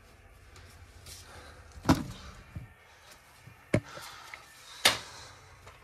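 Three sharp knocks at uneven intervals, over a low background of handling noise.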